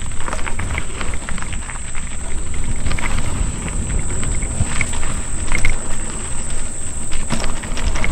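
Mountain bike riding over a dirt trail: wind rumbling on the camera microphone, with the tyres and frame rattling and clicking over roots and gravel, under a steady high-pitched buzz.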